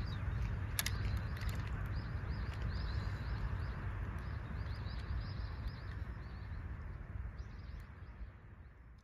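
Seaside outdoor ambience: a steady low rumble of wind on the microphone, with short bird chirps repeating quickly over it. It fades out near the end.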